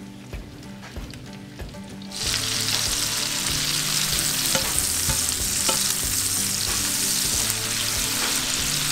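Sliced red bell peppers and onions frying in bacon grease in a stainless steel skillet, sizzling loudly from about two seconds in as they are stirred with a spatula.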